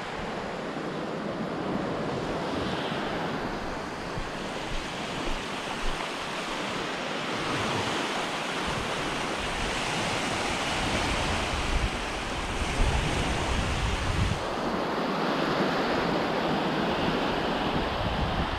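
Small waves washing in over a shallow sandy shoreline, with wind buffeting the microphone in a low rumble that comes and goes.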